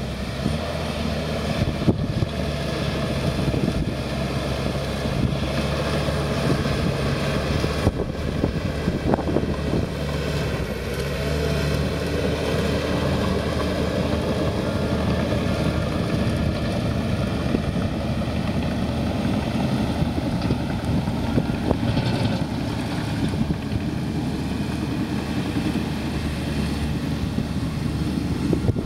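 Komatsu crawler dozer's diesel engine running steadily under load while it pushes ashes and debris, with its steel tracks clanking and squeaking as it moves.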